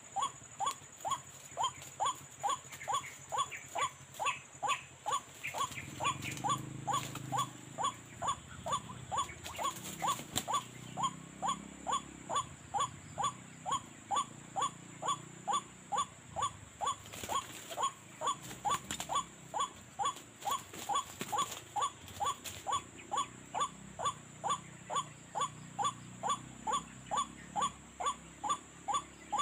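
White-breasted waterhen call, played as a lure: one short note repeated at a very even pace, about twice a second.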